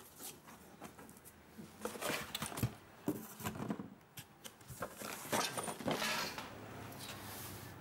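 Irregular rustling, clicks and knocks of cardboard, foam and plastic packaging being handled while an inverter is unboxed.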